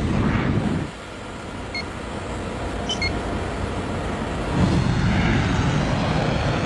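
Jet airliner in flight: a steady rush of engine and airflow noise that dips and then swells again about four and a half seconds in. Two short electronic beeps sound in the middle, about a second apart.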